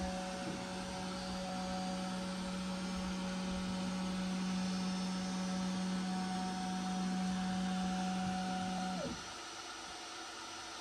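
Upgraded linear modules of a Snapmaker 2.0 A350 moving the print head and gantry. Their stepper motors give a steady, real quiet low whine that cuts off about nine seconds in, leaving only a faint steady hiss of fans.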